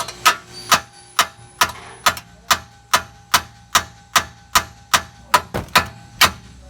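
A hammer strikes a seized ball-joint bolt again and again, its nut threaded on to protect the threads. The metal-on-metal blows come at a steady pace of about two and a half a second, each with a short ring. The bolt is stubborn and has never been apart.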